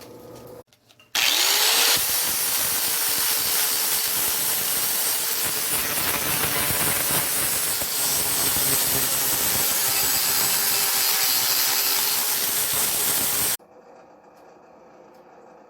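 Electric grinder spinning up about a second in, then grinding steadily on the H13 tool-steel axe eye punch for about twelve seconds before cutting off suddenly.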